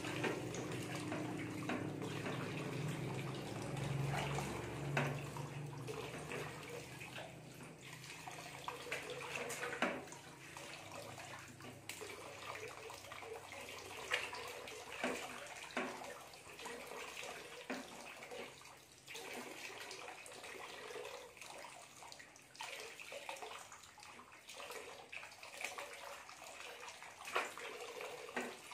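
Water pouring from a hose into a large aluminium basin, with frequent small splashes as hands wash leafy stalks in the water. A low hum sounds underneath for about the first third, then fades out.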